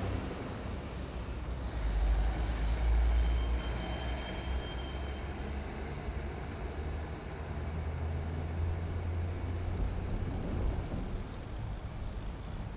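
Low, steady rumble of street traffic, swelling about two seconds in and again around eight seconds.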